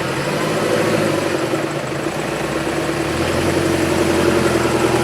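Off-road 4x4 engine running and steadily growing louder, with a deeper note joining about three seconds in.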